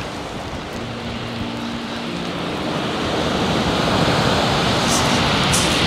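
Surf breaking on a shingle beach, the wash swelling louder about halfway through as a wave comes in, with wind on the microphone. A few faint clicks near the end.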